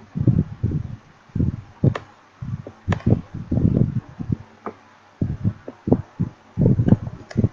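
A man's speech breaking up into short, muffled, unintelligible fragments over a failing live-stream connection, with a few sharp clicks in between.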